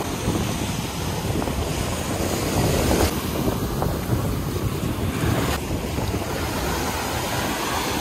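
Ocean surf washing ashore, with wind buffeting the microphone in a low, uneven rumble.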